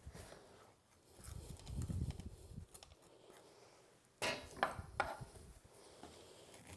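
Faint kitchen handling sounds: a spaghetti squash half and a big spoon knocking on a wooden cutting board, with one sharper knock about four seconds in and a few small clicks and scrapes after it.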